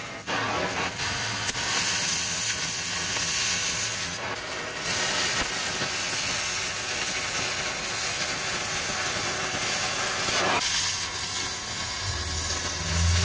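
Oxy-fuel cutting torch hissing steadily as it burns through a steel bracket, the hiss shifting in level a few times as the cut goes on.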